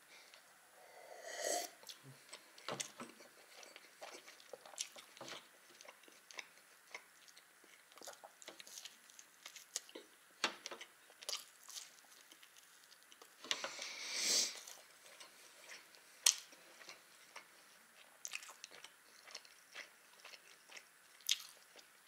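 Close-up chewing and biting of a baked savoury pie, with many small wet mouth clicks. A gulp of drink from a jar comes near the start.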